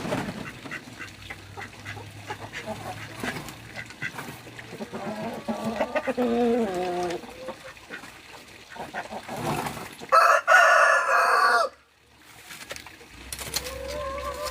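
A rooster crows twice: a first crow about five seconds in and a louder, longer one about ten seconds in. Scattered clicks and scraping run underneath.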